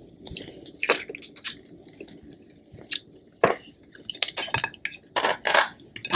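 Whole boiled Dungeness crab being torn apart by hand: irregular cracks and snaps of shell with wet squishing of the crab fat.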